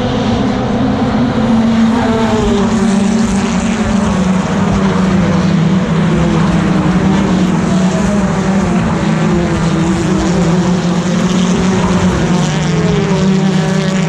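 BTCC touring cars' 2-litre turbocharged four-cylinder engines racing past the trackside, several at once, their pitch rising and falling as they accelerate and shift.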